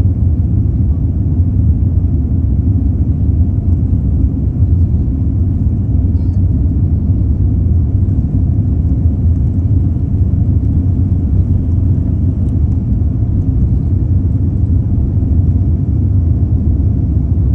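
Steady low rumble inside the passenger cabin of a Boeing 787 airliner while it taxis.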